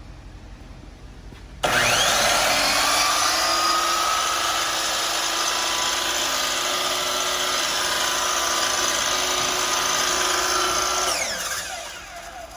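DeWalt DW708 12-inch sliding compound miter saw switched on and running free with no cut, a steady high whine. It starts abruptly with a brief rise in pitch, then is switched off near the end and winds down with a falling pitch.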